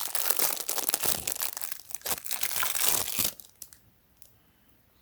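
Plastic packaging crinkling and crackling as it is handled and pulled at, stopping abruptly a little over three seconds in.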